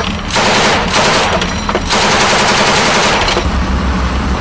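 M240 7.62 mm belt-fed machine gun firing long bursts of automatic fire, with brief pauses between bursts.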